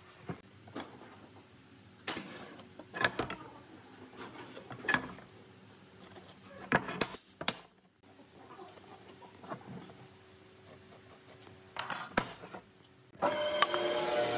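Light knocks and clatter as wooden boards are set down and shifted on a workbench and a metal square is laid on them. About a second before the end a band saw comes in, running and cutting into the board.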